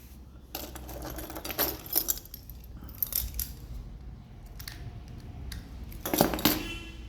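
Coin-cell battery being worked out of a Ford EcoSport remote key fob's plastic case: a run of small clicks and scrapes, with a louder clatter near the end.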